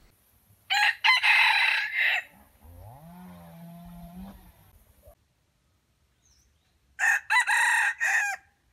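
Red junglefowl rooster crowing twice, a short broken crow about a second in and another near the end. A fainter, lower wavering call sounds between the two crows.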